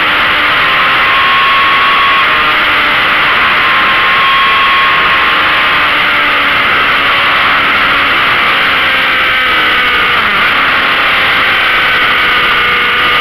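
Motorcycle riding at highway speed: steady, loud wind rush over the microphone with the engine's hum underneath, its pitch easing slightly lower in the second half.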